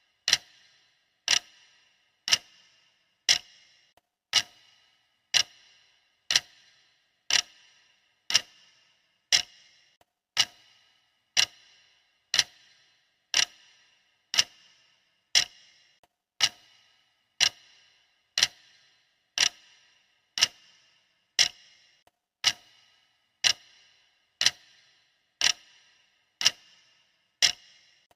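Clock ticking steadily, one sharp tick each second with a brief bright ring after each.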